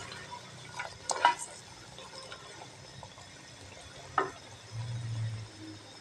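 Wooden spoon stirring a mutton curry in a clay handi, scraping and knocking against the pot a few times, the sharpest strokes about a second in and about four seconds in, over a faint frying sizzle. A brief low hum comes about five seconds in.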